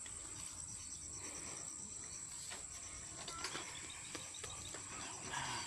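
Insects shrilling: a continuous high buzz with a pulsing chirp alongside, about six pulses a second. A brief louder rustling noise comes near the end.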